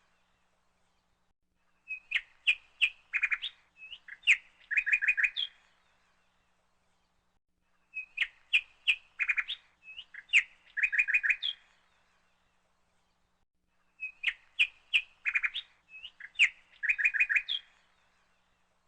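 A bird chirping in quick runs of short high notes. The same sequence of chirps repeats three times, about every six seconds, with silent gaps between.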